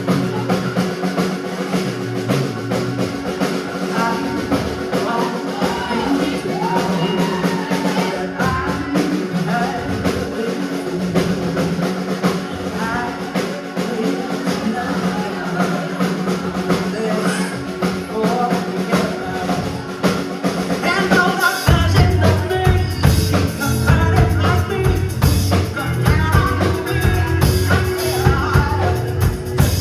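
Rock band playing a song with a singer over drums; about two-thirds of the way through, the bass and drums come in fuller and louder.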